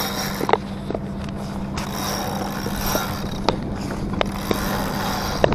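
Steady low hum of a sailing yacht's engine under way, over a rush of wind and water, with a few scattered sharp clicks and knocks.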